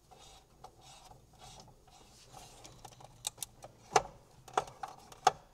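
Screwdriver working screws out of an aircraft instrument panel: faint scraping and rubbing, then several sharp clicks in the second half.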